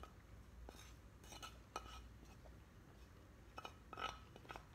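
Faint scrapes and light clicks of a wooden spoon pushing sisig off a tilted sizzling plate onto a wooden plate, a little louder near the end.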